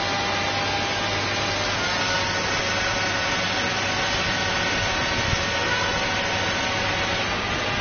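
Remote-control hovercraft's twin electric fans running steadily: a constant whine of several held tones over a hiss of rushing air.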